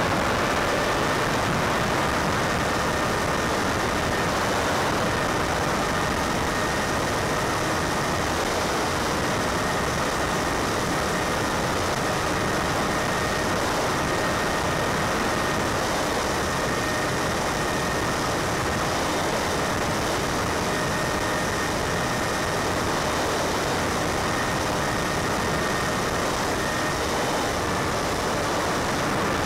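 Steady rushing hiss with a few faint, steady whining tones over it: the audio of an analog 5.8 GHz FPV video link from a Multiplex Easy Star in cruising flight.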